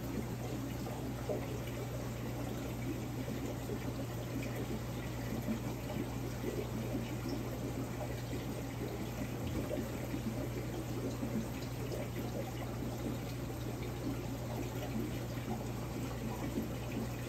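Steady rushing and bubbling of water circulating through a large overflow aquarium, with a steady low hum underneath.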